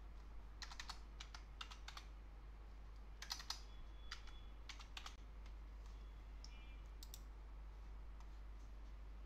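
Computer keyboard keys clicking in a few short runs of taps, thinning to scattered single taps in the second half, over a steady low hum.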